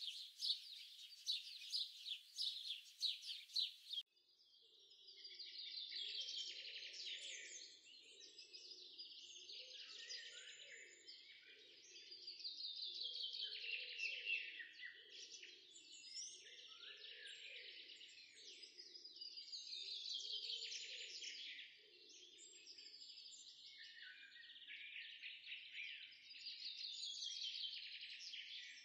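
Background recording of many small birds chirping in a dense chorus. The recording changes abruptly about four seconds in, becoming a fuller, pulsing chorus.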